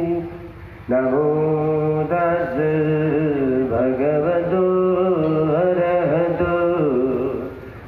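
Buddhist monks chanting a slow, melodic chant with held notes that step up and down. One phrase trails off just after the start, a new one begins about a second in and fades out near the end.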